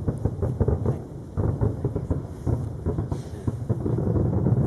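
Distant fireworks bursting in quick succession: many overlapping booms that echo into a continuous low rumble.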